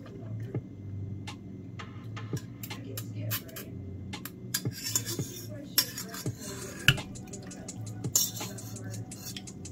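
Utensils clicking and scraping against a stainless steel bowl as sauced rice noodles are tossed, with a few louder clanks about five to seven seconds in. Near the end the bowl is tipped and the noodles slide out onto a ceramic plate.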